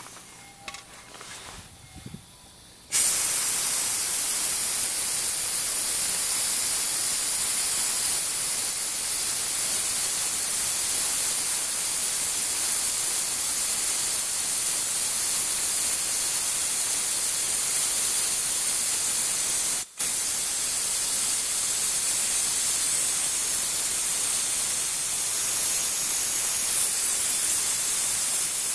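Compressed air hissing loudly and steadily while the rear drum brake is bled through a clear tube on its bleeder. The hiss starts abruptly about three seconds in and breaks off for a moment about two-thirds of the way through.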